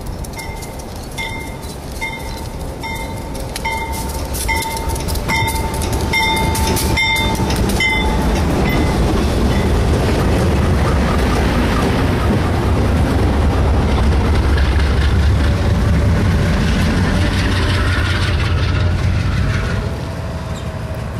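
Providence & Worcester diesel freight locomotives approaching and passing close by. A bell rings in quick, even strokes for about the first eight seconds, then the deep rumble of the diesel engines and wheels builds up as the units go past. The sound drops suddenly near the end.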